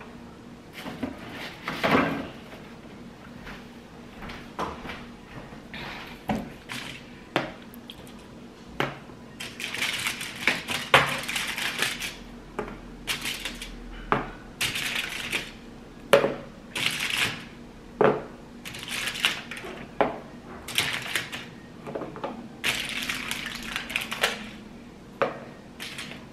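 Kitchen handling sounds: a string of knocks and clicks of things and dishes set down on a counter, mixed with short rustling bursts, with the strongest knock about two seconds in.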